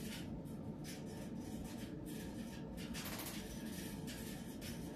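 Quiet room hum with faint rubbing and handling sounds, and one brief swish about three seconds in.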